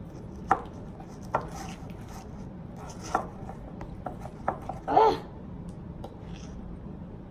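A spoon stirring slime in a bowl, with scattered clicks and scrapes of the spoon against the bowl.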